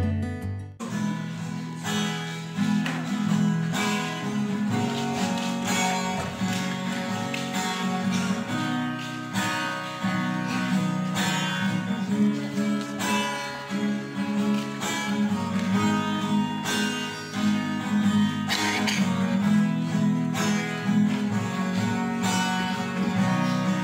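Acoustic guitar strumming and picking chords as an instrumental passage, beginning about a second in after a brief stretch of other music.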